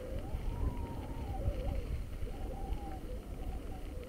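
Wind rumbling on the microphone of a moving bicycle, with a faint wavering tone above it.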